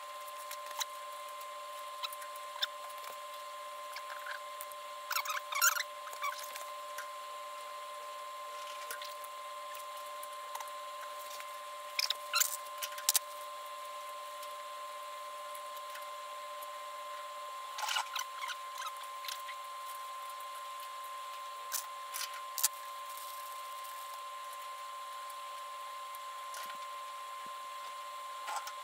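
Scattered light clicks and small metallic clatters, in short clusters every few seconds, from solid aluminium rivets and a hand rivet squeezer being handled at an aircraft spar and rib. A steady high hum runs underneath.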